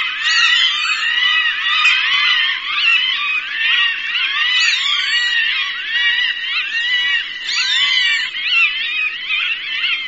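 Hawk calls, many short rising-and-falling screams overlapping in a dense, unbroken chorus, played as a bird-scaring recording.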